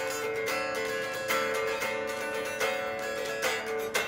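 Plucked and strummed string instrument playing a riff, chords struck about every three-quarters of a second over a ringing held note.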